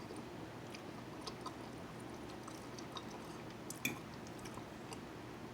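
A person chewing food close to the microphone: soft wet mouth clicks and smacks, with one sharper click about four seconds in, over a faint steady background hum.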